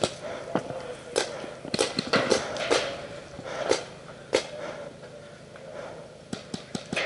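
Paintball markers firing: sharp pops, spaced irregularly in ones and short strings, with a quicker flurry near the end.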